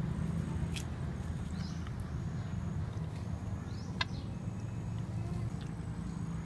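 Outdoor ambience of a bird calling over and over, a short high sweeping call about once a second, over a steady low hum. Two sharp clicks come in, one near the start and one about four seconds in.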